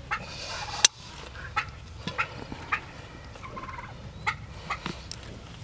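A turkey gobbling in the background, twice. About a second in there is one sharp, loud snap, followed by several lighter clicks, from horse hoof nippers cutting through a pig's overgrown claw.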